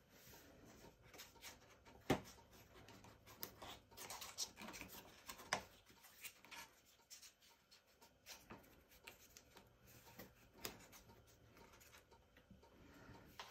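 Faint rustling and rubbing of cardstock as a folded paper lantern piece is held and pressed in the hands, with scattered light taps; one sharper tap about two seconds in.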